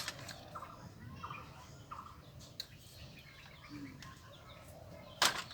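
A few faint, short fowl-like bird calls in the first couple of seconds and a lower one near the end, with a sharp knock at the start and another near the end.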